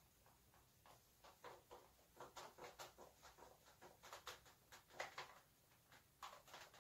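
Faint rubbing of an eraser wiping a whiteboard: quick back-and-forth strokes, several a second, in short runs.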